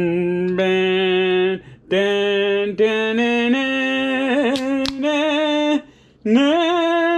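A man's voice singing a wordless tune in long, steady held notes, about half a dozen of them with short breaks between. There is a single sharp click about five seconds in.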